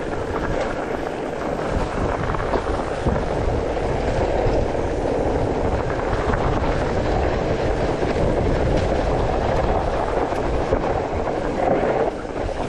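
Mountain bike riding over a bumpy, snow-covered dirt trail: a continuous rumble of tyres on the ground with the rattle and clatter of the bike over bumps.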